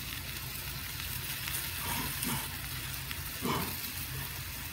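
Frozen broccoli and cauliflower sizzling in a pan of butter, oil and garlic as they sauté, a steady frying hiss. Two short, faint pitched sounds come about two and three and a half seconds in.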